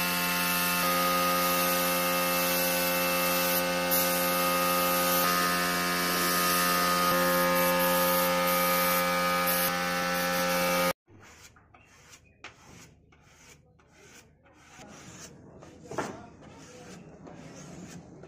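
Air compressor running steadily under the hiss of a paint spray gun, for about eleven seconds until it cuts off. Then comes quieter, irregular scraping of body filler being spread with a flexible spreader over a steel door panel, with one sharper scrape near the end.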